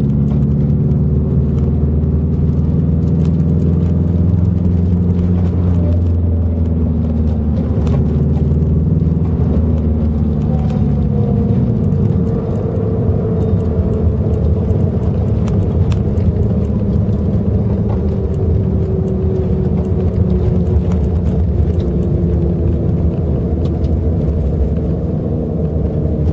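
Nissan 240SX (S14) driving, engine and road noise with a thin whine from the freshly installed rear viscous limited-slip differential. About halfway through the engine note drops away, as when coming off the gas, and the whine carries on, slowly falling in pitch. The owner suspects a bad differential or wheel bearings.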